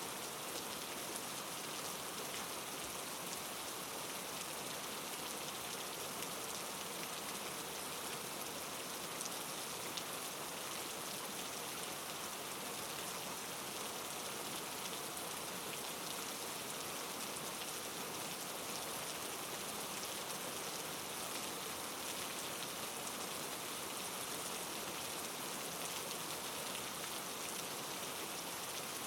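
Steady rain falling, a dense patter of many fine drops with no break.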